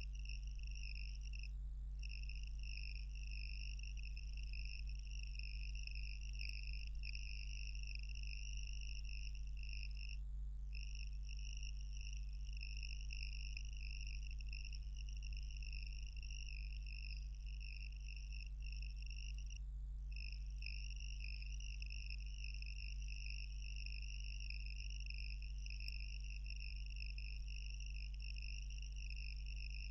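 A continuous high-pitched insect trill, broken briefly about every nine seconds, over a steady low hum.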